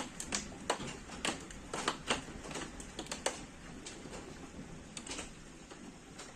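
Hailstones striking hard surfaces: irregular sharp ticks and knocks over a steady hiss of the downpour, coming thickly at first and thinning out after about three and a half seconds.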